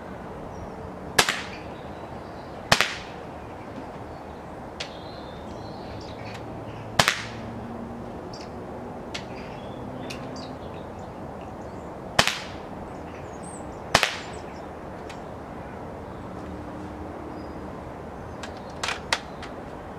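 Walther LP53 .177 spring-piston air pistol firing a string of shots: five loud, sharp cracks at uneven intervals, with a few fainter clicks between them and a quick pair near the end.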